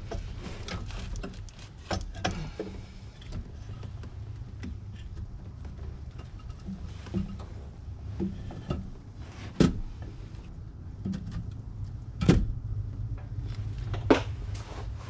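Scattered metallic clinks and knocks of hand tools and head bolts being handled and set into a Duramax diesel cylinder head, with three sharp clanks in the second half, over a steady low hum.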